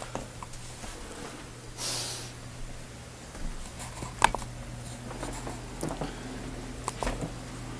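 Handling noise from a handheld camera carried through a room: a brief rustle about two seconds in and a few soft knocks, the sharpest about four seconds in, over a steady low hum.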